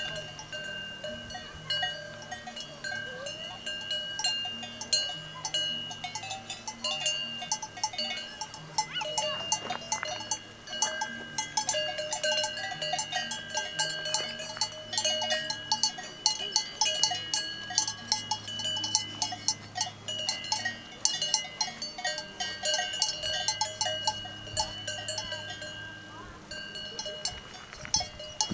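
Cowbells on grazing cattle clanking irregularly and without a break, several bells ringing at different pitches.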